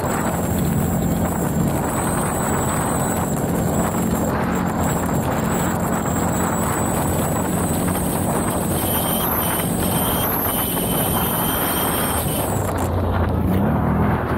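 CF Moto 850 quad's V-twin engine running steadily under way, rising in pitch near the end as it speeds up.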